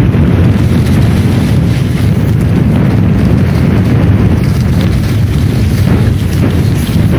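Wind buffeting the microphone of a camera moving fast down a snowy slope: a loud, steady, irregular low rumble.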